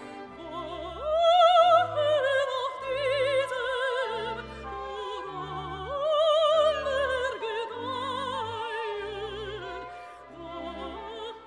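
Operatic singing with a strong vibrato over orchestral accompaniment. The voice swells on loud held notes about a second in and again about midway.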